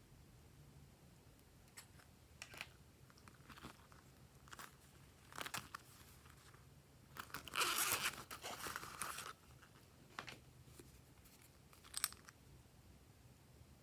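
Slime being squished and stretched by hand, giving scattered sticky clicks and pops that bunch into a crackling stretch about halfway through.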